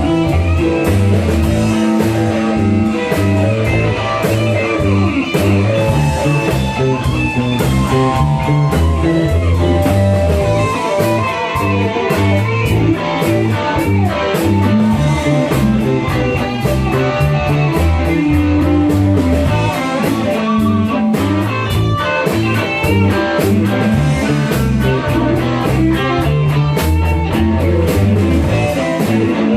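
Music with guitar in a blues-rock style, over a steady beat.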